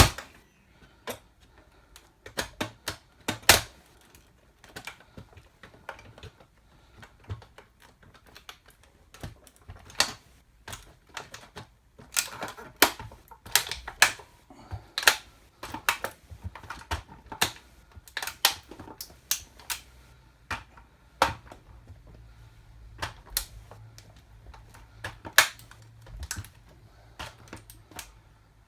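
Irregular sharp clicks and cracks, bunched several a second at times, as a toy car is crushed and stepped on under 8-inch platform high heels.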